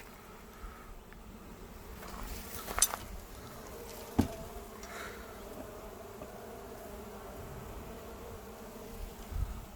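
Honeybees buzzing steadily around an open hive during an inspection, with two sharp clicks about three and four seconds in.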